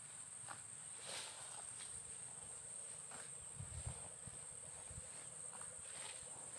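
Insects chirring in a steady high-pitched drone, with faint scattered clicks and a few soft low thumps in the middle.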